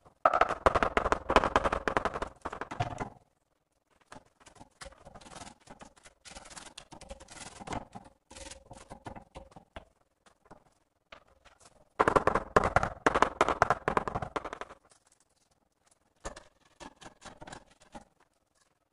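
A mallet tapping rapidly on a ceramic tile to bed it into the tile adhesive, in two dense runs of quick strikes of about three seconds each, one at the start and one past the middle. Lighter knocks and scraping come between them, with a few faint knocks near the end.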